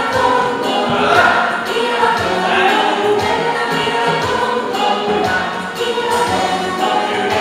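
Music: a choir of voices singing together over instrumental accompaniment.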